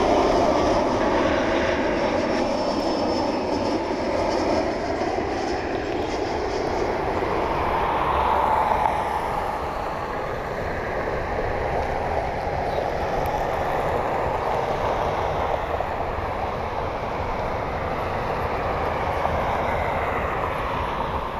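Jet airliner flying past, a continuous rush of engine noise with tones that drift slowly in pitch. It is loudest at the start and again about eight seconds in.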